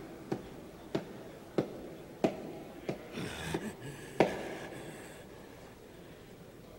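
A row of sharp, evenly spaced knocks, about one every two-thirds of a second, stopping a little past the middle.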